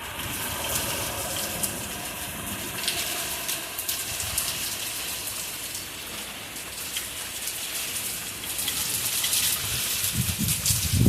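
Heavy thunderstorm rain falling steadily, with many separate drop hits heard through it. A loud low rumble swells near the end.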